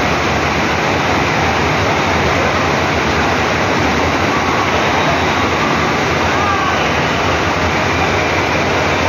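Steady loud rush of water pouring up an artificial surf-wave machine, with a low hum underneath.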